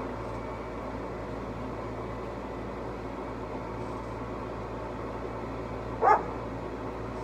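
Steady low background hum and noise, broken once about six seconds in by a single short, sharp, pitched sound.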